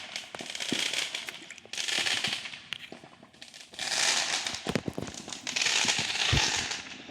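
Fireworks going off: four crackling bursts about a second each, with scattered sharp pops and a low boom near the end.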